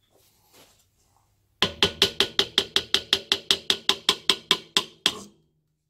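A hammer tapping rapidly on the field-winding stator of an air compressor's electric motor to knock it off the motor casing. About twenty quick strikes, roughly six a second, each with a short ring, starting about a second and a half in, with a last strike a little after five seconds.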